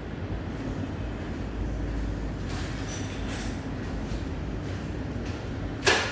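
A steady low rumble, with a short, sharp, loud sound near the end.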